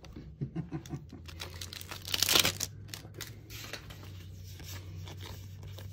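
Foil wrapper of a Magic: The Gathering booster pack crinkling as it is handled and torn open, with one loud rip a little over two seconds in, then lighter rustling as the cards are pulled out.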